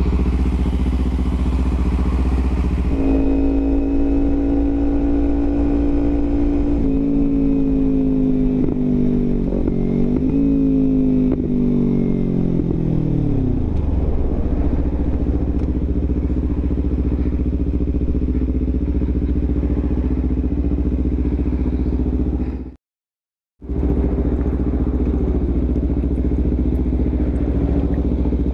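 Kawasaki Ninja 300 parallel-twin engine under way with a passenger, over a steady low rumble of wind and road noise. About three seconds in the engine note comes up to a held pitch, wavers from about seven seconds, and falls away by about fourteen seconds as the throttle closes. The sound cuts out completely for under a second about three-quarters of the way through.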